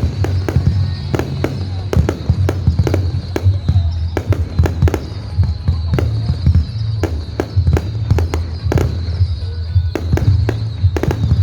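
Fireworks bursting in quick succession, two or three sharp bangs a second, over a steady low rumble.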